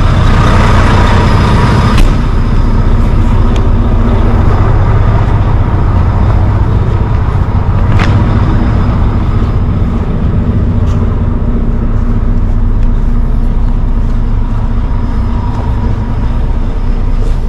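Semi-truck's diesel engine idling steadily, with a sharp click about two seconds in and another about eight seconds in.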